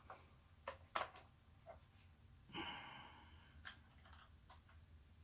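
Near silence with a few faint clicks and a brief soft rustle: a mechanical keyboard being handled and set down on a digital kitchen scale.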